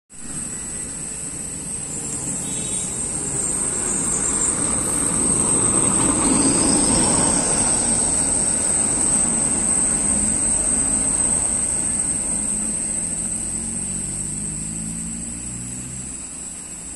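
A Tata tipper truck's diesel engine passing by, growing louder to a peak about six to seven seconds in, then fading as it pulls away. A steady high-pitched buzz runs throughout.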